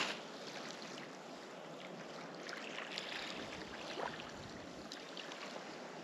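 Faint steady rush of flowing water, with a few faint small ticks.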